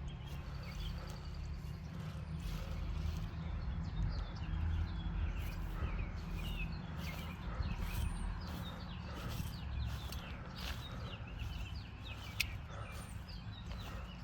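Outdoor ambience: birds chirping repeatedly over a steady low rumble.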